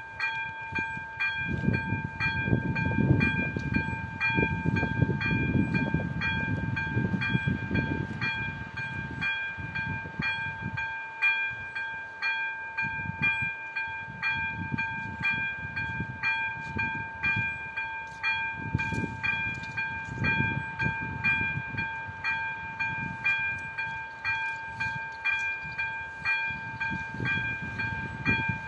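Electronic warning bell of a Czech level crossing ringing steadily, a rapid series of evenly spaced dings: the crossing is active, warning of an approaching train. A low rumble swells and fades underneath, strongest over the first eight seconds and again about twenty seconds in.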